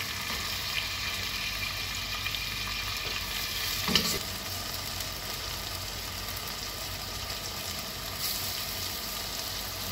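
Chopped onion sizzling in oil in a stainless steel pot on a gas burner, stirred with a wooden spoon, a steady frying hiss. A sharp knock about four seconds in, and the hiss grows brighter near the end as chopped tomato goes into the pot.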